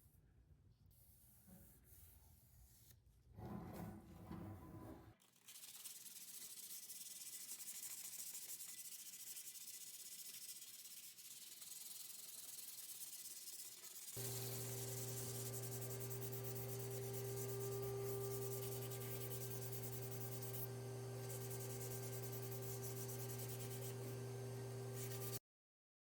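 Abrasive sanding on metal: a steady scratchy hiss. About halfway through, an electric tool's motor hum joins it and runs steadily, then cuts off suddenly near the end.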